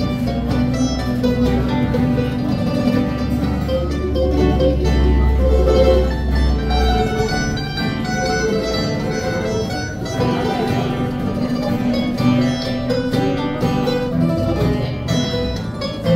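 Acoustic string trio of guitar, banjo-mandolin and mandolin playing a traditional dance tune: the guitar strums the chords under quick picked melody and countermelody lines.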